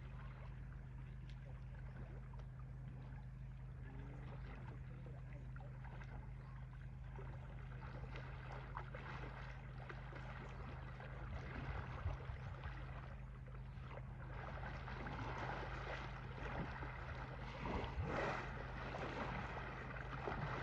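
Asian elephants swimming in a pond: water splashing and sloshing around them, with heavier splashes now and then in the second half, over a steady low rumble.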